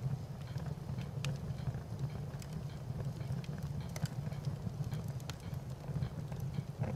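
Fire crackling: a steady low rumble with scattered sharp pops and crackles at irregular intervals.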